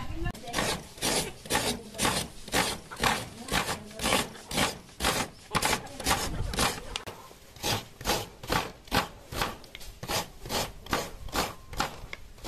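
Half a coconut scraped back and forth against the serrated metal blade of a wooden bench coconut grater, shredding the white flesh. Regular rasping strokes, about two to three a second.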